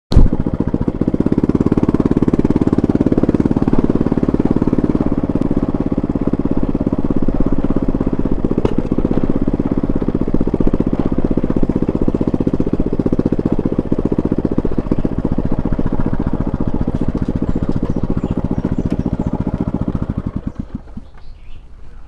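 Motor scooter engine running steadily while being ridden, heard close up from the handlebars, then falling away about a second and a half before the end.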